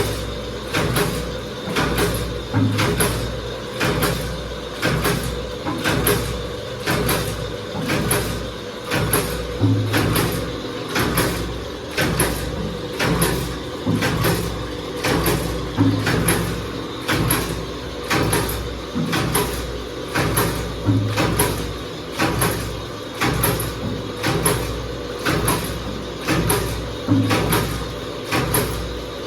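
Fully automatic paper dona (bowl) making machine running, its press stamping in a steady cycle of about one stroke a second over a constant hum.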